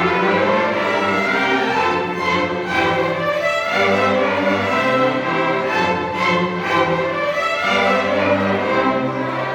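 A school string orchestra playing, with violins and cellos bowing sustained chords that change every second or so.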